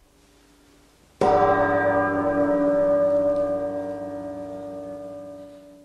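A single deep bell stroke about a second in, ringing on and slowly dying away. It marks the end of the act in a radio play.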